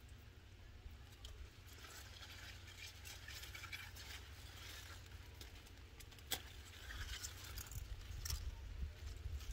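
Irregular rustling and crackling of large mustard-green leaves as the plants are handled and pulled up, with one sharp crack a little past halfway, over a low steady rumble.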